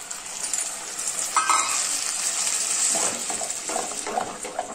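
Ground tomato paste hitting hot oil and onions in a clay pot and sizzling, with a hiss that comes up about a second and a half in. A steel spoon then stirs it, in short scraping strokes against the pot.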